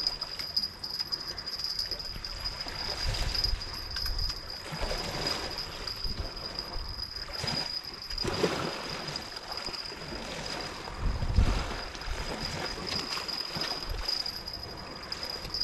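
Seawater washing and splashing in uneven surges, with wind gusting on the microphone and a steady, high-pitched insect trill behind it.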